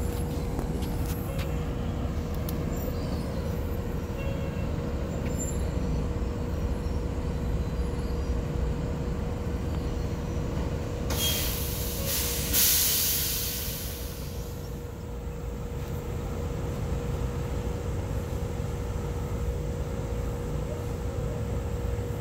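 A steady low mechanical rumble with a constant hum, broken about eleven seconds in by a loud hiss that lasts about three seconds.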